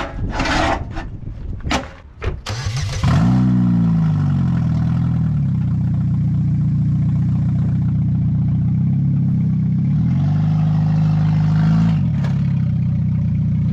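A few knocks, then a GM J-body car's engine starts about three seconds in and settles as the revs fall, running loud through its noisy, worn-out exhaust. Around ten seconds in it revs up a little, holds, and drops back as the car is driven up onto ramps.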